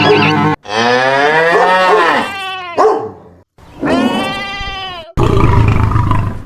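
Two cow moos, cut in one after the other, each one long call, the first sliding down at its end. A low rumbling stretch follows near the end.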